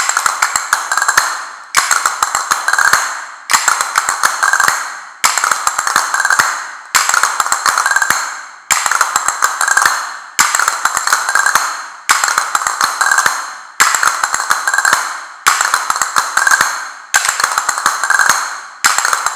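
Two pairs of castanets played together, one short phrase of quick clicks and rolls repeated about every 1.7 seconds, about eleven times, as a practice exercise.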